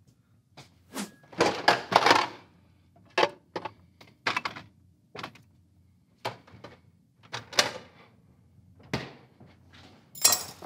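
A fork docking a raw pie crust in a glass pie dish: about a dozen irregular, short taps and scrapes as the tines prick through the dough and strike the dish. The crust is being pricked before blind baking.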